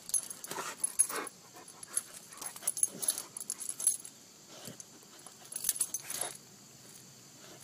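Large dog sniffing and snuffling close to the ground in clusters of short bursts.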